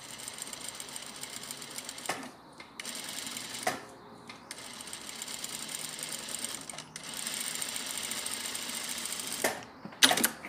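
Industrial lockstitch sewing machine stitching a fabric seam in several runs, with short stops between them about 2 and 4 seconds in. A couple of sharp clacks near the end are the loudest sounds.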